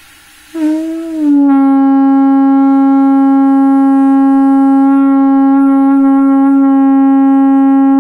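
Padma shankh (conch shell) blown through a fitted mouthpiece: after a short rush of breath the note starts about half a second in, wavers briefly in pitch, then settles into one long, steady, loud blast held to the end.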